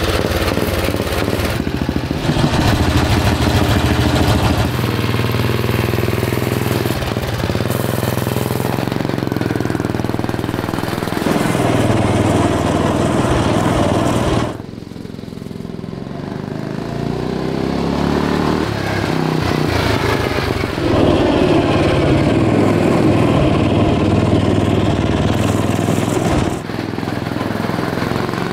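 Briggs & Stratton 5 hp single-cylinder four-stroke engine on a go-kart running under load and revving up and down as the kart is driven, its pitch rising and falling with the throttle, with a few abrupt changes in sound. The engine bogs at times, which the drivers put down to a worn-out, 20- to 30-year-old carburetor.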